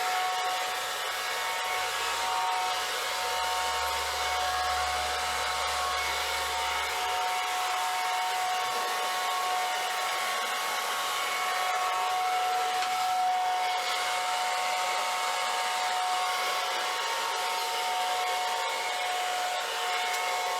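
Hand-held hair dryer fitted with a pointed concentrator nozzle, blowing steadily: a rush of air with a constant motor whine.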